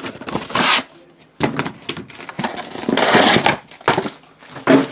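Cardboard product box and packaging being handled: a series of rustles, scrapes and knocks, the longest and loudest a scraping rustle about three seconds in, with a short sharp knock near the end.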